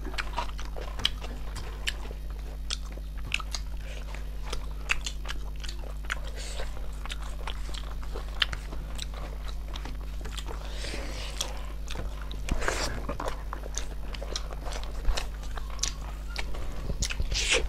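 Close-up mouth sounds of eating snail curry: many small, irregular clicks and smacks of biting and chewing, with a few longer noisy sucking or slurping sounds, one about eleven seconds in, another just before thirteen seconds and one near the end.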